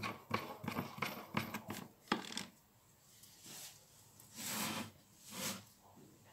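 Light metallic clicks and taps as the clamping nut is fitted onto the spindle of a Bosch GWS 7-125 angle grinder and the tool is handled. After that come three soft swishes about a second apart as the grinder is moved on the floor.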